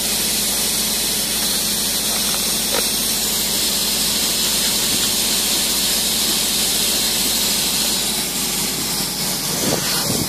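Loud steady hiss with a low machine hum underneath, from spray foam equipment running.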